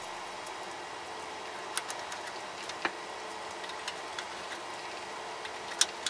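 Screwdriver turning the small mounting screws that fix a hard drive into a PC case's steel drive cage: scattered light clicks and ticks, a few sharper ones about two and three seconds in and near the end, over a steady hiss.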